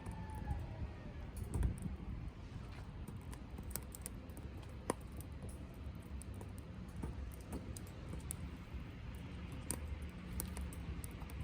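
Conifer wood crackling as it burns in a small wood-gas stove: scattered sharp pops and ticks, one louder snap about five seconds in, over a low rumble of the fire.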